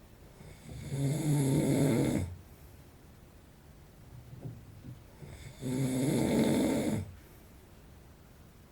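A man in his forties snoring in his sleep: two loud snores, each about a second and a half long, about five seconds apart. His snoring goes with sleep apnea.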